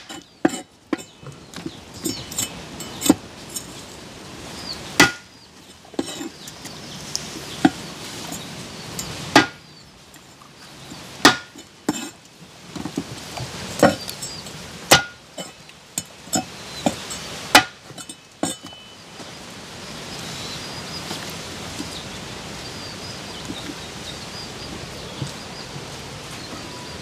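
Meat cleaver chopping through whole fish on a wooden cutting board: sharp, irregular chops a second or two apart. The chopping stops about two-thirds of the way in, leaving a steady hiss.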